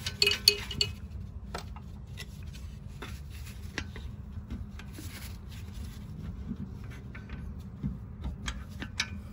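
Scattered metallic clicks and clinks of hand tools such as a screwdriver working on the car's rear suspension parts, several in quick succession about the first second and a few more spread out later, over a steady low hum.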